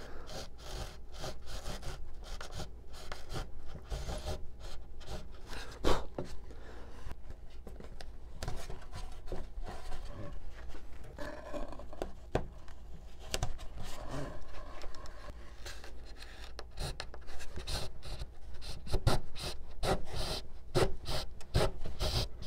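Razor saw cutting through balsa wood in quick, repeated back-and-forth strokes.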